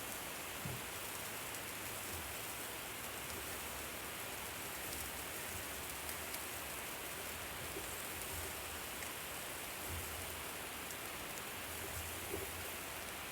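Food sizzling on a hot barbecue grill: a steady hiss with faint scattered pops.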